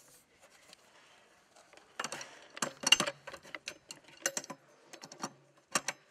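A spanner clicking and scraping on brass pipe fittings as joints on copper water piping are tightened. Quiet at first, then a run of irregular, sharp metallic clicks begins about two seconds in.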